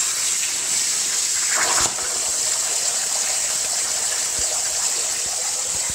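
CNC plasma cutter torch hissing steadily as it cuts 10-gauge mild steel over a water table. About two seconds in there is a knock and the arc stops, but air keeps hissing from the torch and bubbling the water under the plate.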